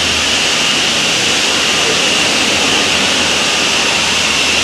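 Steady loud din of construction machinery and traffic at a building site: a continuous roar with a low engine hum underneath.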